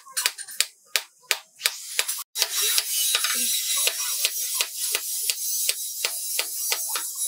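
Hand hammer striking a hot steel sword blade on a small post anvil, about three blows a second, each with a short metallic ring. After a brief break a steady hiss runs under the blows.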